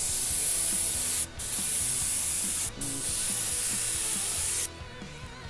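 Iwata Eclipse bottle-feed airbrush spraying through a stencil: a steady high hiss of air and spray. It breaks off twice for a moment as the trigger is let off, then stops near the end.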